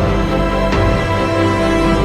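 Loud background music with sustained chords, and a sharp hit about two-thirds of a second in.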